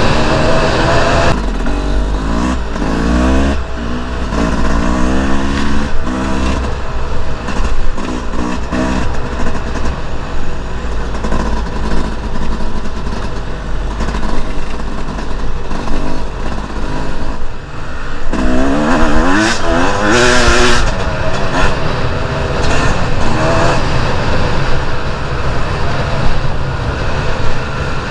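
Two-stroke enduro motorcycle engine being ridden hard, revving up and dropping back again and again as the rider works the throttle and gears. A steady low rumble runs underneath.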